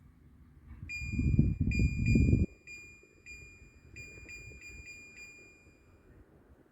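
A high electronic beep tone that starts about a second in and sounds on and off for about five seconds, re-triggered roughly ten times. During its first second and a half a loud low rumble is heard.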